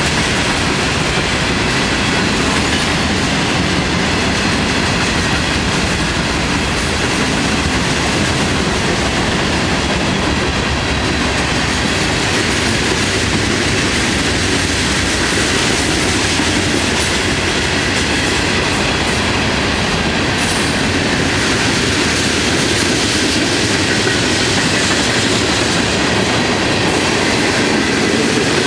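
Freight cars of a long Florida East Coast Railway train rolling past at close range: a steady, loud rumble and clatter of steel wheels on the rails, with a thin high ringing running through it.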